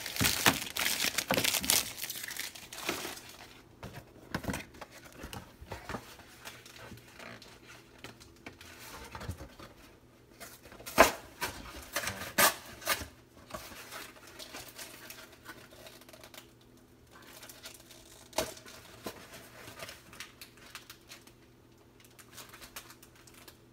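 Cardboard tearing and plastic wrappers crinkling as a glued-in trading card pack is worked loose from a Fruit Roll-Ups box. A dense stretch of rustling comes in the first two seconds, then scattered crackles, the sharpest about eleven seconds in.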